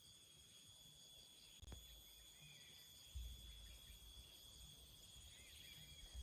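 Faint rainforest insect chorus, crickets or cicadas trilling steadily at several high pitches at once, with a few soft chirps over it. A brief click comes just under two seconds in, and a low thud about three seconds in.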